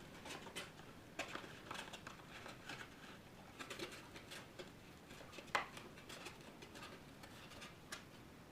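Faint handling noise of trading cards and their cardboard box: scattered light clicks and rustles, with one sharper click about five and a half seconds in.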